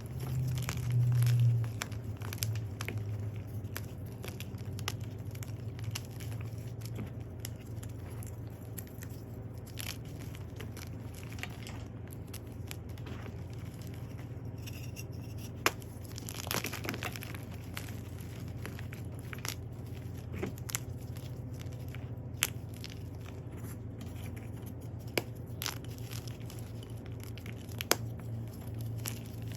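Dyed gym chalk being crushed: continuous crunching and crackling with scattered sharp snaps, over a steady low hum.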